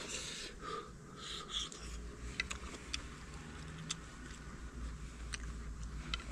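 Someone eating from a metal pan with chopsticks: scattered sharp clicks of the chopsticks against the pan and soft chewing sounds, over a steady low rumble.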